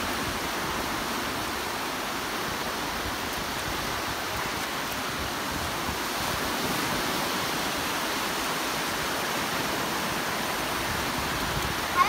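Small waves washing onto a sandy beach, a steady hiss of surf.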